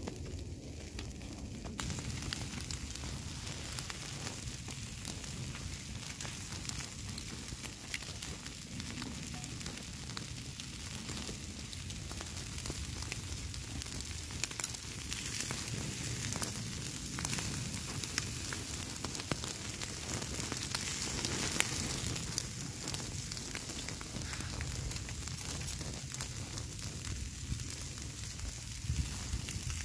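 Food sizzling in a pan over a campfire: a steady frying hiss that sets in about two seconds in, with scattered pops and crackles.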